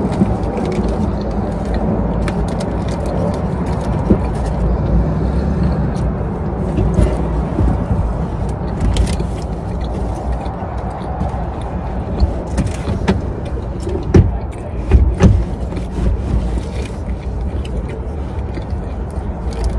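Close-miked chewing and food handling while eating a bagel sandwich, with a few sharp knocks or clicks about two-thirds in, over a steady low rumble.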